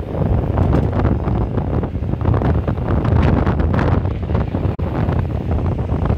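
Loud wind buffeting the microphone, with a car passing close by as it begins.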